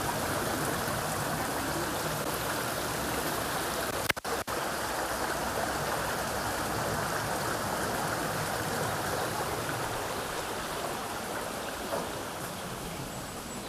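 Mountain river running steadily, a continuous even rush of water. It cuts out for a moment about four seconds in.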